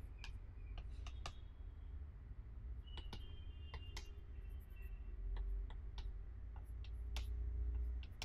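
Chalk tapping and scraping on a chalkboard in short strokes, drawing a dashed line: a string of sharp irregular clicks, a few a second, over a low steady hum.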